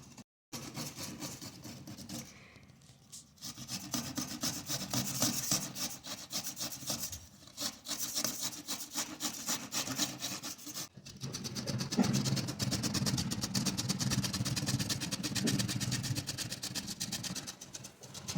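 Carrots being grated by hand on a metal grater: quick, repeated scraping strokes, broken by a few short pauses.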